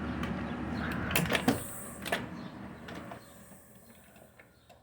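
Aluminium storm door with a cheap pneumatic storm door closer being worked: several clicks and rattles over a steady low noise, dying away about three seconds in.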